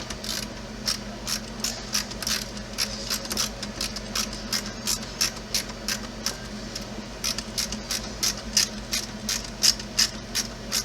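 Quick, irregular clicking and ticking of small parts being handled and worked on, about three to five clicks a second, over a steady low hum.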